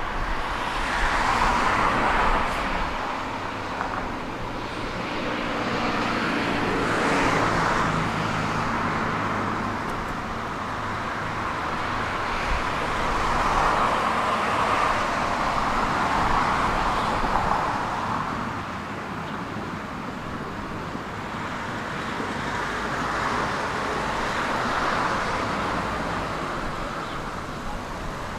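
Tram running along its track: a steady rolling noise of wheels on the rails that swells and eases several times.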